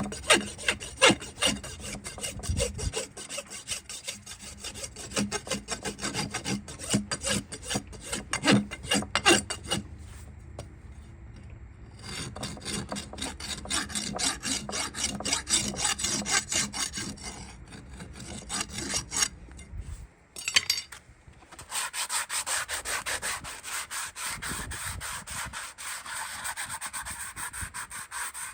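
Farrier's rasp filing a horse's hoof in repeated strokes, with a short pause partway through. About three quarters of the way in it changes to a steadier, finer scraping, like sanding the hoof wall smooth.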